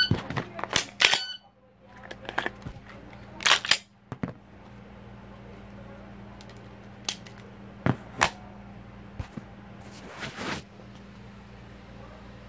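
Glock pistol worked through an unloaded start in dry fire. In about the first second there is a fast clatter of sharp clicks and clacks as the pistol is snatched up, a magazine seated, the slide racked and the trigger pressed. This is followed by scattered clacks and clicks of magazine and slide as the gun is handled and set down again.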